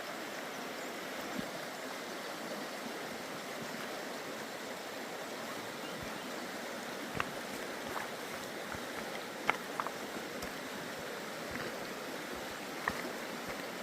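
Steady rush of creek water flowing over stones, with a few faint, brief clicks.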